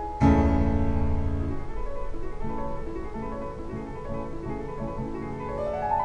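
Classical music with a prominent piano, played from a CD over a hi-fi system's loudspeakers. A loud chord sounds about a quarter second in and slowly dies away, and a rising run of notes comes near the end.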